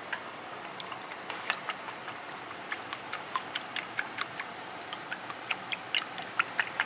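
A spoon clinking lightly and quickly against ceramic bowls, a few irregular clicks a second, as pig's blood and broth are stirred together for tiết canh.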